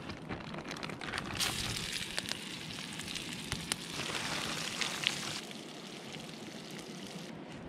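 Rehydrated black bean burgers sizzling in a frying pan, a steady hiss with scattered pops and crackles. The sizzle swells louder for a few seconds from about a second and a half in, then eases back.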